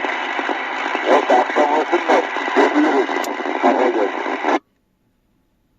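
Albrecht Alpha 4000 FM CB radio receiving: a voice heard through its speaker over steady hiss, with a thin, narrow-band radio sound. The signal cuts off suddenly a little over four and a half seconds in, leaving near silence.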